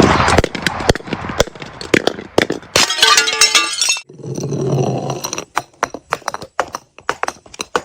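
Glass breaking: a run of sharp cracks with a burst of ringing glass about three seconds in and a crunching crash near five seconds, then many small sharp clinks as the pieces fall and settle.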